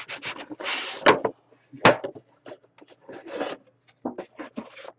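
A 2015 Immaculate Football card box being handled and its lid worked off: rubbing and scraping of the box parts against each other, with two sharp knocks at about one and two seconds in and small clicks near the end.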